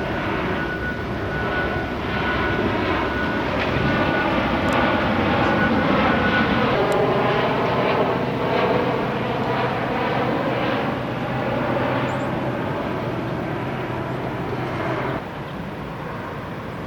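Jet airplane flying over: an engine rumble and whine that swells to its loudest about six seconds in, drops in pitch as it passes, then fades and drops off suddenly about fifteen seconds in.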